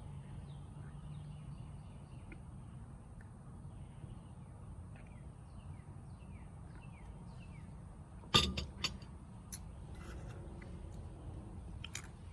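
Backyard birdsong: a bird repeats short falling chirps for the first seven seconds or so. After that come a few sharp clicks, the loudest about eight seconds in.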